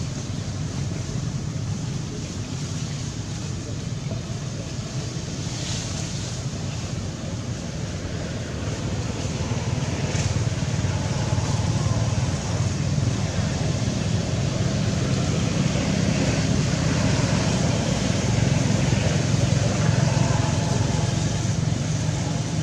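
Steady low rumble of outdoor background noise, a little louder from about halfway through.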